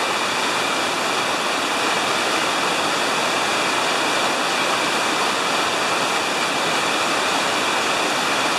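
Big-river whitewater rapids rushing steadily, an even, unbroken noise of breaking waves and churning water.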